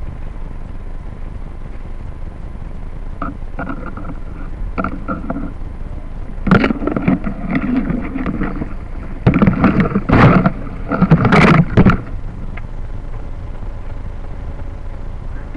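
Large leaves brushing and rustling against the camera's microphone, in a few scattered scrapes and then several loud bursts in the middle, over a steady low wind rumble on the microphone.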